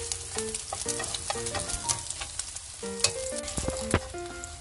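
A slotted metal spatula scraping and clicking against a frying pan as scrambled egg is scooped out, over a light sizzle of hot oil. A few sharper clicks come around the middle and near the end.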